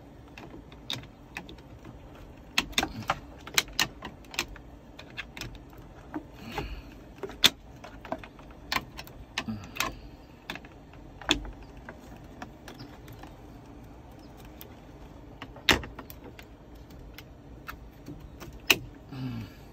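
Plastic dashboard trim panel being pried off and handled, with irregular clicks, snaps and knocks of plastic clips and parts, a few of them sharp and loud.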